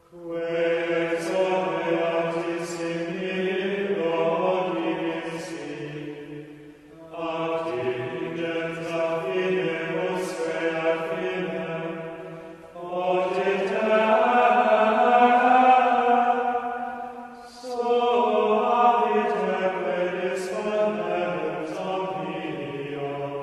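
Sung chant: a voice line holding and gliding between notes in four long phrases, each about five to six seconds, with short breaks between them and clear sibilant consonants.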